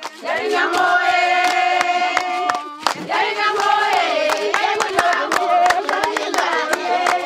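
A group of voices singing in chorus, holding long notes, over a run of sharp percussive hits. The singing breaks off briefly just under halfway through.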